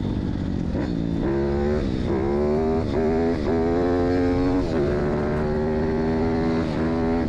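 Pit bike's 160cc KLX-type single-cylinder four-stroke engine, converted to a four-valve head and tuned, pulling hard under load. It revs up and drops back several times, holds a steady pitch for a couple of seconds, then climbs again near the end.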